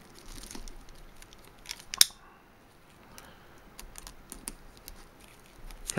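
Plastic shrink wrap on a boxed DVD set being cut open by hand: faint crinkles and small clicks, with one sharp snap about two seconds in.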